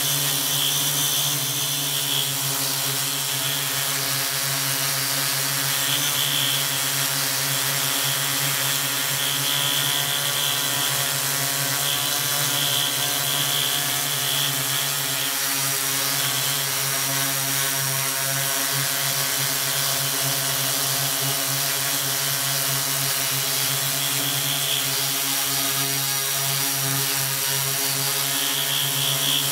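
Multirotor drone's electric motors and propellers running steadily, picked up by the camera riding on the aircraft: a constant buzzing hum made of many even tones, with a faint high whine that comes and goes.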